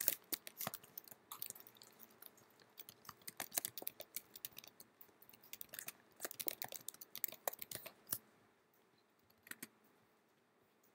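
Typing on a computer keyboard: quick runs of key clicks with short pauses between them. The typing stops about eight seconds in, and one lone click follows near the end.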